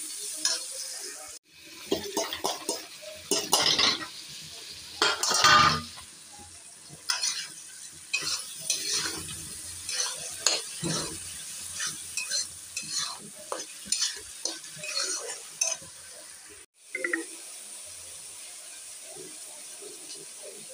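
A metal spatula stirring and scraping a masala of onions, tomatoes and capsicum frying in a kadai, in many short irregular strokes over a steady sizzle. The stirring stops near the end, leaving a faint steady hiss.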